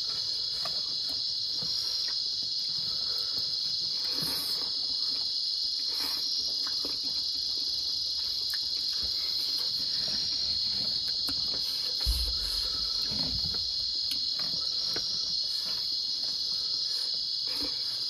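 Steady high-pitched insect chorus, with faint small clicks of hands working rice and food and a brief low thump about twelve seconds in.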